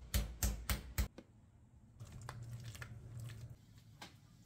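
Wooden meat mallet pounding a piece of boneless chicken on a plastic cutting board: four quick, loud thuds within the first second. After that, fainter kitchen sounds with a low steady hum.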